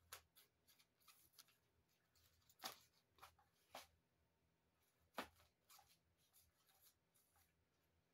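Faint, scattered scratches and taps of a cat batting at an electronic cat toy, with a few sharper ones in the middle.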